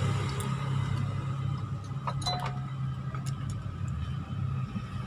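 Light metal clinks as the cylinder head of an old Honda Supra engine is worked off its studs, in two small clusters about two seconds and three and a half seconds in, over a steady low hum.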